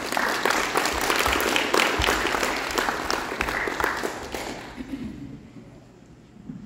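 An audience applauding, a dense patter of many hands clapping that dies away about five seconds in.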